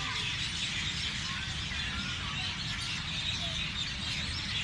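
A chorus of many small birds chirping and twittering at once, short high chirps overlapping throughout, over a steady low rumble.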